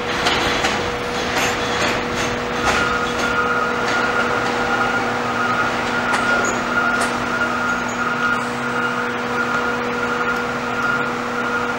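New York City subway train of R46 cars pulling into an elevated station, its wheels clicking over the rail joints. About two and a half seconds in, a steady whine from the train sets in and holds.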